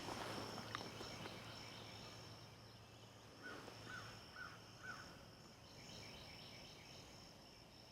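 Faint outdoor ambience: a steady high-pitched insect drone, with four short chirps from a bird about three and a half seconds in, roughly two a second.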